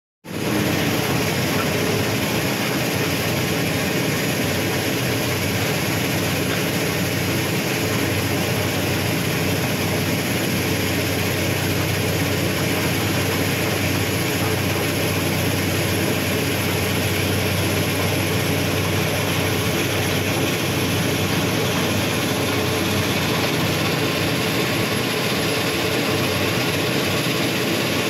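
Heavy diesel engine of earthmoving machinery running at a steady, even drone.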